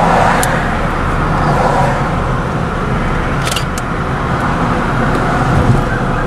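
Car driving along a road: steady engine and tyre noise, with a few brief light clicks about half a second in and a little past the middle.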